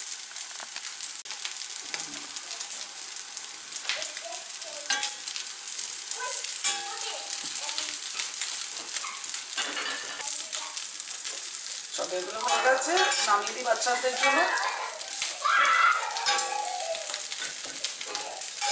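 Patties sizzling steadily as they shallow-fry in oil and butter in a cast-iron skillet, with scattered small crackles. Near the end a spatula scrapes and clicks against the pan as the patties are turned, and voices in the background are heard for a few seconds past the middle.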